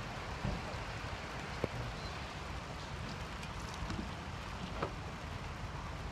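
Steady outdoor background noise with a few faint knocks and clicks.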